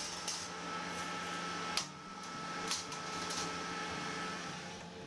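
Steady hum of bakery equipment with a thin high whine, overlaid by a few short clinks and scrapes of a metal baking tray being handled on a wire rack, the sharpest a little under two seconds in. The whine stops near the end.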